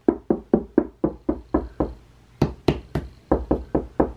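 Knuckles rapping on a drywall wall, a quick run of knocks about four a second with a short pause about two seconds in. The wall sounds hollow: the knocks are a check for solid spots (studs) behind the drywall.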